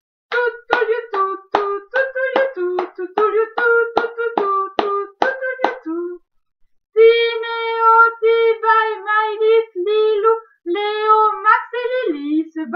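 A woman singing a French children's song unaccompanied. She first sings a run of short, evenly spaced syllables, a little over two a second, then pauses briefly about six seconds in, then sings a smoother, more connected line.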